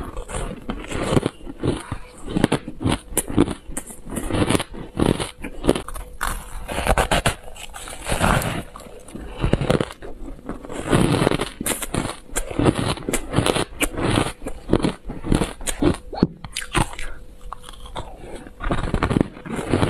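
Close-miked biting and chewing of crumbly, purple-tinted frozen ice: many irregular crunches and crackles following one another with no real pause.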